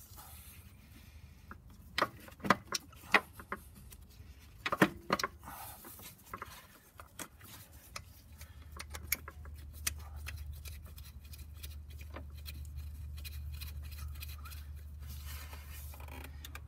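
Sharp metallic clinks and knocks of an A/C compressor and its long mounting bolts being worked into place by hand, loudest in a cluster of several knocks a few seconds in, then lighter ticks and scraping. A low steady hum comes in about halfway through and carries on under them.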